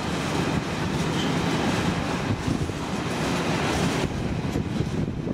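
Freight train of empty timber wagons rolling along the rails, a steady rumble of wheels and wagons. The higher part of the sound drops away about four seconds in.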